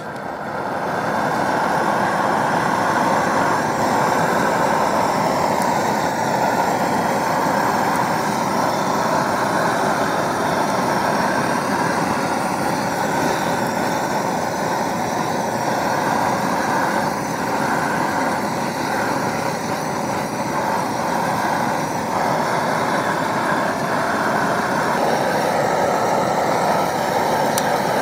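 Handheld gas torch burning with a steady, loud hiss as it lights a small fire of debris.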